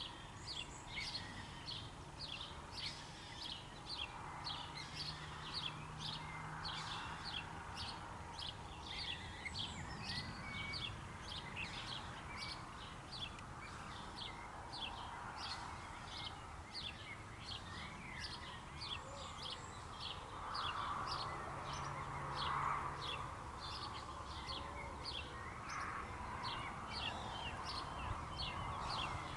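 A small songbird repeats a short, high chirp about twice a second, over a soft, steady background hiss.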